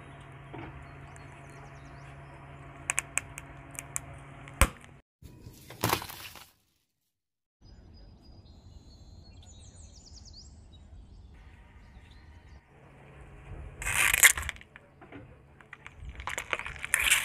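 Car tyre rolling over plastic marker pens, which give a few sharp cracks as they break. Later the tyre crushes a hollow plastic toy bee in two clusters of crackling crunches, over a low steady hum.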